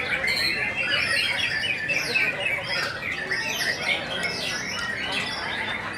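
Several caged songbirds singing at once: a dense, overlapping run of quick whistles, trills and chirps.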